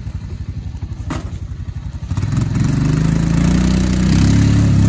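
Quad ATV engine idling with an even low chugging, then revved hard about two seconds in and held at high revs as its tires spin in the mud, trying to climb out of a creek onto a steep bank.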